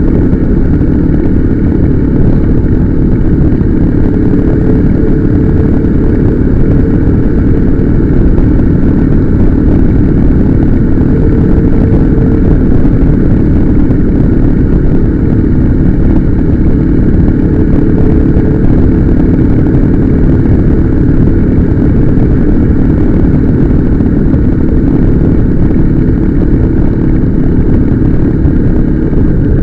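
Motorcycle riding at a steady cruising speed: a constant engine drone with a dense, loud rumble of wind and road noise on the microphone.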